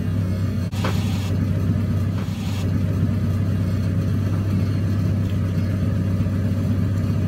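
A steady low rumble, with two short bursts of hiss about one and two seconds in.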